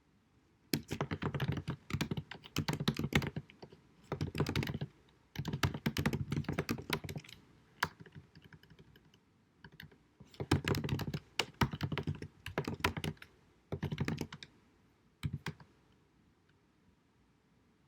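Typing on a computer keyboard: rapid runs of key clicks in bursts of a second or two, with short pauses between, and a few single keystrokes near the end. The recording is deliberately low-quality.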